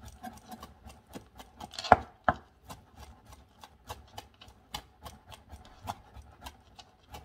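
Chef's knife finely chopping rolled fresh basil on a plastic cutting board: quick steady knocks, about four a second, with one louder knock about two seconds in.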